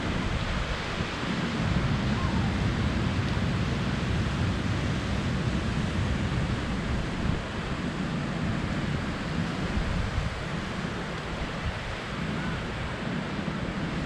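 Ocean surf washing onto a sandy beach, a steady wash of noise, with wind gusting across the microphone as an uneven low rumble.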